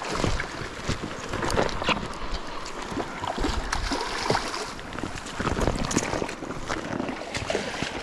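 Water splashing and sloshing as a hooked trout thrashes and is drawn into a landing net in a shallow stream, with irregular short splashes over the rush of the stream. Wind buffets the microphone.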